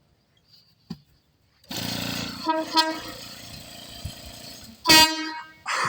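Air-powered train horn being sounded: a click about a second in, then a rush of air with a low buzz and a couple of brief sputtering horn notes, and near the end a short, loud, clear horn blast.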